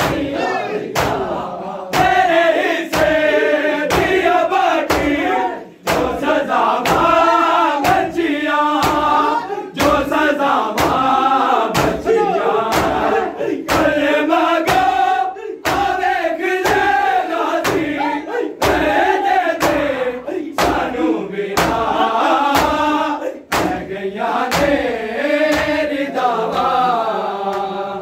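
Men chanting a nauha lament together, their voices rising and falling, over rhythmic open-handed chest-beating (matam) at about two strikes a second. The sound dips briefly twice.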